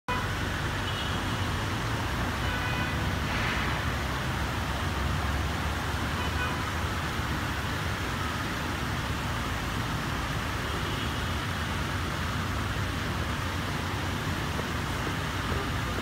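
Steady rush of a plaza fountain's falling water mixed with the low rumble of city street traffic, with a few faint short high tones in the first few seconds.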